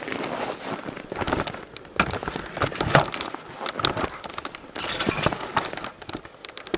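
Irregular crunching and crinkling of footsteps in fresh snow and snow-laden brush, with rustling close to the microphone.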